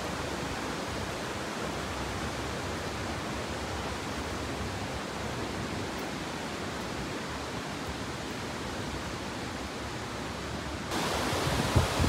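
Steady, even rushing of a mountain stream flowing over rocks. About a second before the end it becomes louder and brighter.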